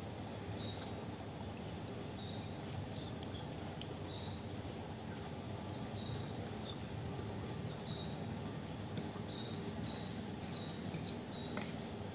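A cricket chirping, short high chirps about once a second, over steady low background noise. A couple of light clicks come near the end.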